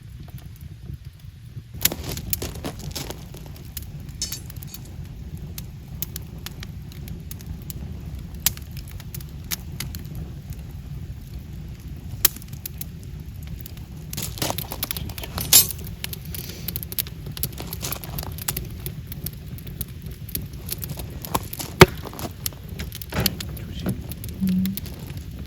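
Wood campfire burning: a steady low rumble of flames with scattered crackles and snaps of burning firewood, picking up about two seconds in, the loudest a single sharp pop near the end.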